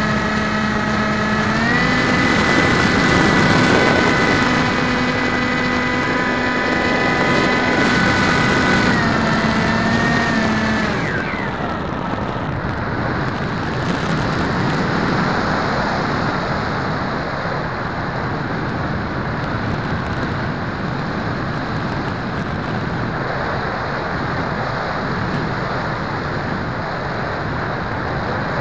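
RC floater jet's motor and propeller running steadily in flight, heard from onboard. The pitch steps up about two seconds in, drops back near nine seconds, and the motor cuts out at about eleven seconds, leaving only wind rushing past the airframe as it glides.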